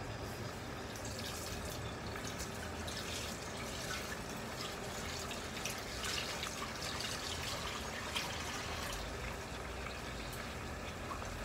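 Beef steak and sliced onions sizzling in a pot on low heat: a steady soft crackle with scattered small pops.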